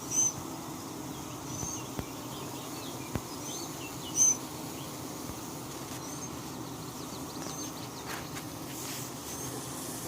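Honeybees humming steadily at a crowded hive entrance, with short high chirps from a bird every second or two; the loudest chirp comes about four seconds in.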